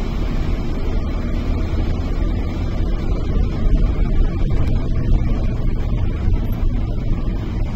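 Minibus cabin noise while driving on a wet road: a steady low rumble of engine and tyres, heard from inside the van.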